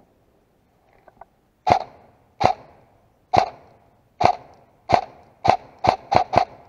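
Airsoft gun firing nine single shots, each a sharp pop. They come at an uneven pace, speeding to a quick run of four near the end, with two faint clicks just before the first shot.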